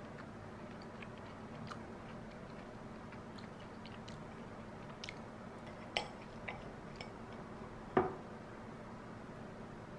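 Knife and fork cutting soft French toast on a ceramic plate: faint squishing and small ticks, with sharper clinks of metal on the plate about six seconds in and, loudest, about eight seconds in.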